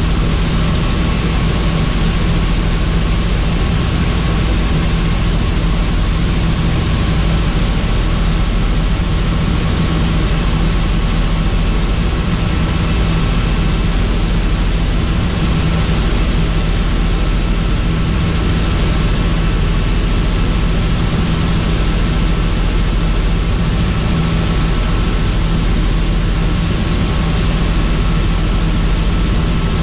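Helicopter running steadily, a constant loud drone of engine and rotor with a faint high whine over it.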